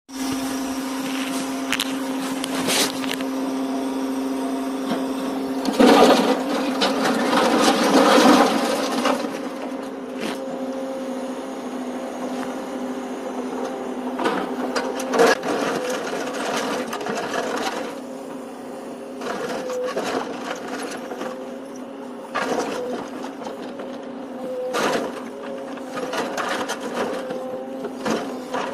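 A truck-mounted grapple crane's engine and hydraulics run with a steady hum that shifts in pitch as the boom works. Scrap metal clatters and clanks as the grapple drops and handles it, loudest about six to nine seconds in.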